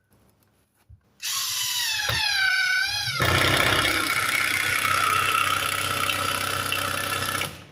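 Power tool driving a fastener into wood framing, running about six seconds. It opens with a wavering whine, then runs steadier and noisier, and stops abruptly near the end.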